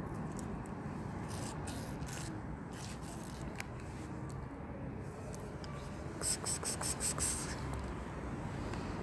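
A tabby cat eating on pavement, over a steady street background: a few faint clicks early, then a quick run of about eight sharp crunching clicks in a little over a second, about six seconds in.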